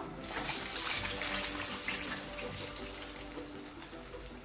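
Battered fish sizzling in hot frying oil. The sizzle swells sharply about a third of a second in, then slowly eases off.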